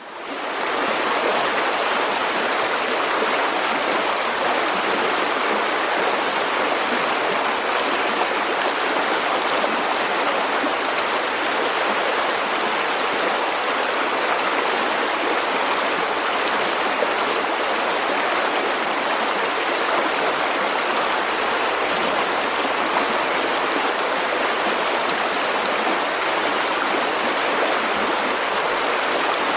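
River water flowing over rocks: a steady, continuous rushing and splashing that fades in over the first second.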